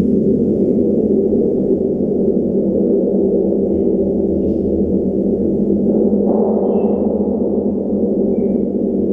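A 200 cm Javanese giant gong played with soft white-headed mallets, held in a steady, dense low drone. The sound brightens about six seconds in, and a few faint high squeaks show near the end.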